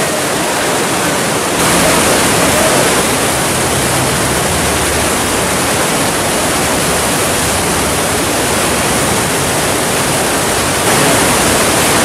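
Steady rushing of whitewater rapids, with a slight step up in loudness about a second and a half in and again near the end.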